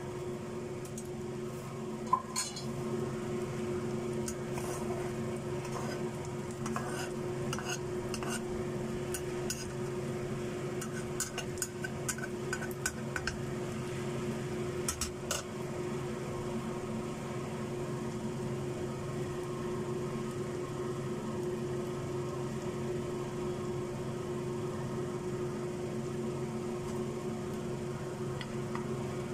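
Metal spatula scraping and clacking against a frying pan, with one sharp clack about two seconds in and scattered light clicks through the first half, over faint sizzling of egg frying in oil and a steady low hum.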